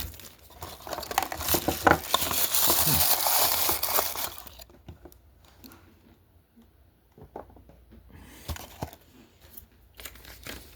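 Crinkling of an opened blind-bag packet's wrapper as it is handled, dense for the first four seconds or so, then dropping to a few faint light taps and rustles.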